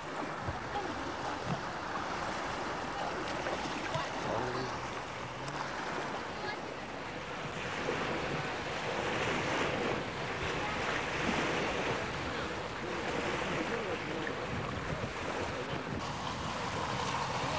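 Sea surf washing on the shore, mixed with wind buffeting the microphone: a steady rush that grows a little stronger about halfway through.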